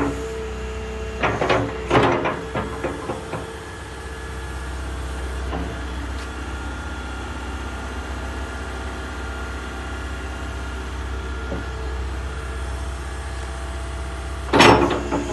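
Liebherr A 311 Litronic wheeled excavator's diesel engine running steadily while its hydraulics work the boom and bucket. There are several metallic clanks from the arm and bucket linkage in the first few seconds and a single loud clank near the end.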